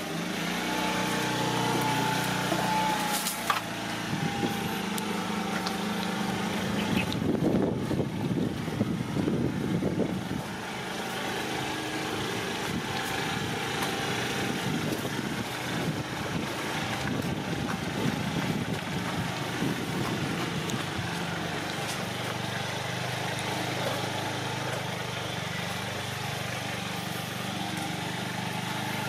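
Small Honda Today 50cc four-stroke scooter engine running steadily, with a louder, rougher stretch of a few seconds about a quarter of the way in. The scooter is carrying its rider off along a dirt lane.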